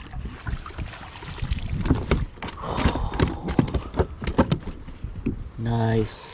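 Irregular knocks and clicks of gear being handled on a fishing kayak, with a short low buzzing tone near the end.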